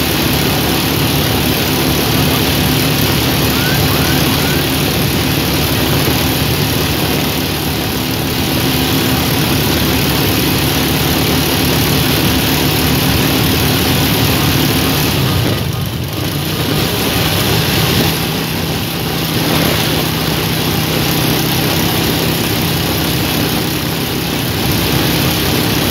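Motorcycle riding along a road: steady wind rush over the microphone with the engine's drone underneath. About sixteen seconds in the sound dips briefly, and the engine note then settles at a different pitch.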